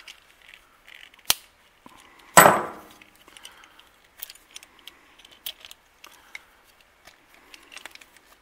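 Small metal screw clamps being worked loose and unscrewed from a glued-up knife handle: scattered clicks and scrapes, with a sharp click just over a second in and a loud clunk about two and a half seconds in. The clamps are stuck on by cured epoxy.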